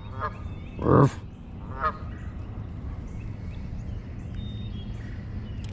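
Goose honking: one loud honk about a second in, with fainter honks just before and after it, then only a low steady background.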